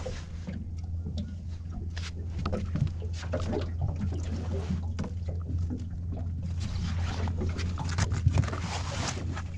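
Knocks, clicks and rustling as a large flathead is handled and measured in a small fishing boat, busiest about two-thirds of the way through, over a steady low hum.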